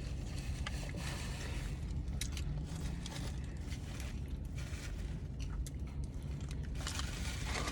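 Faint eating sounds: scattered small crunches and clicks from fried chicken being chewed and handled, over a steady low hum inside a car.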